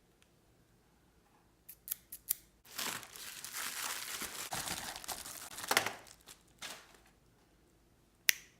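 A few sharp clicks, then about three seconds of crinkling and rustling, like something being handled or rubbed, and one sharp click near the end.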